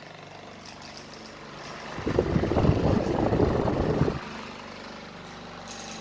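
Cadence Ventilar Eros Supreme table fan running at top speed with a steady hum; about two seconds in, a much louder rough rushing noise comes for about two seconds and then stops abruptly.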